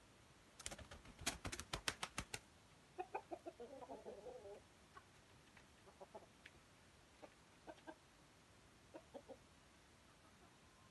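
Rooster clucking in short, low calls: a busy run about three to four seconds in, then single clucks spread out through the rest. Before the clucking, a quick run of about ten sharp claps or knocks in under two seconds.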